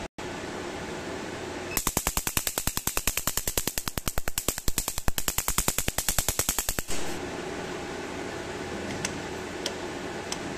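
Picosecond 1064 nm tattoo-removal laser firing at 10 Hz onto black paper: a fast, even run of sharp snaps, about ten a second, for about five seconds as each pulse blasts a spark off the paper. A few single faint clicks follow near the end over a steady hum.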